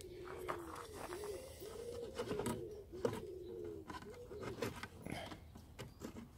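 A pigeon cooing in a string of repeated low calls, with a few light clicks of plastic parts being handled.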